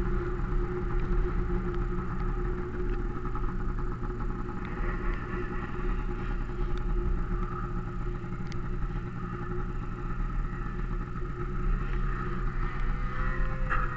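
Snowmobile engine running steadily under way, heard from the rider's own machine.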